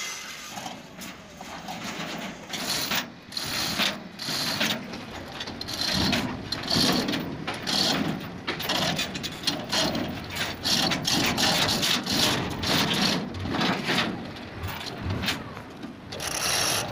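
Manual chain hoist being worked by hand: steel chain rattling and clanking, with many irregular sharp clicks.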